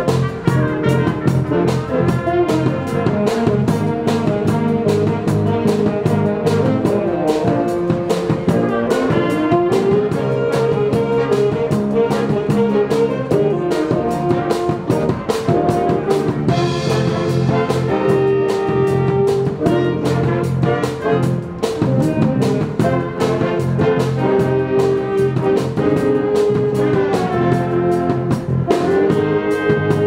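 Jazz band playing live: horns carry the tune over a drum kit keeping a steady beat and an electric bass.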